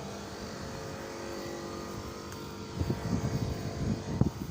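Grant boiler's burner and fan running with a steady hum of several fixed tones. From about three seconds in, uneven low thumps and rumble of wind or handling noise come in over it.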